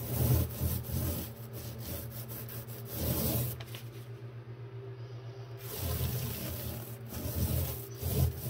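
Paint roller spreading primer over a bare wooden cabinet panel: several back-and-forth rolling strokes, with a lull about halfway through.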